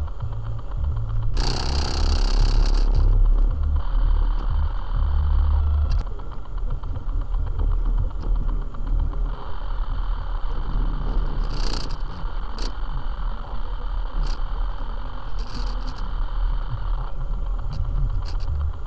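Car cabin sound while driving in heavy rain: a steady low engine and road rumble with rattles. About a second and a half in comes a loud rushing hiss lasting about two seconds, and a few sharp ticks follow in the second half.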